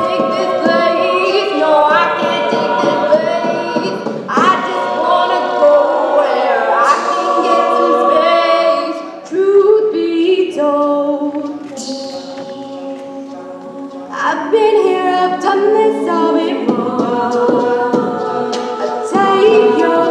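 Mixed-voice a cappella group singing in close harmony, several voices stacked in chords. About ten seconds in the singing drops to a softer passage, then swells back up a few seconds later.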